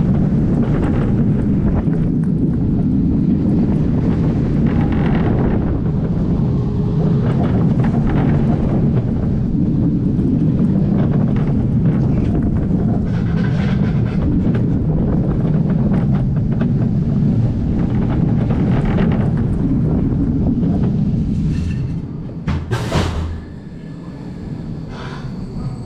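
Steel roller coaster train running at speed along its track: a steady wheel rumble with wind rushing over the front-seat microphone. About 22 seconds in it slows into a covered brake section, where the sound drops to a quieter rumble broken by a few sharp clunks.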